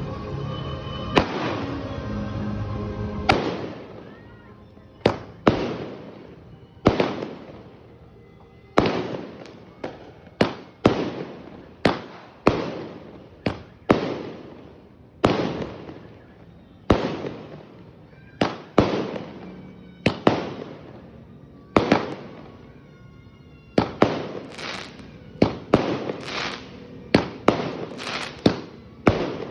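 Golden Rooster Dreamnight 100-shot firework cake firing: a long string of sharp bangs, each trailing off, about one a second and coming quicker near the end. Music plays over the first three seconds.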